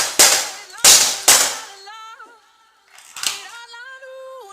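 Air gun shots: sharp cracks, two close pairs in the first second and a half and one more a little after three seconds, over background music with a held melody.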